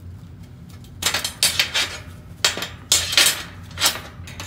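Sharp metal clanks and clinks, about half a dozen starting about a second in, as a steel hold-down clamp is released and lifted off a steel welding table and pliers are used on the welded steel plates.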